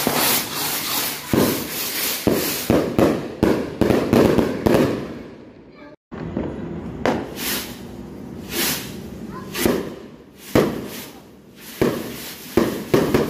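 Skyrocket fireworks (kwitis) going off: a rapid run of sharp pops and bangs. The sound breaks off for an instant about six seconds in.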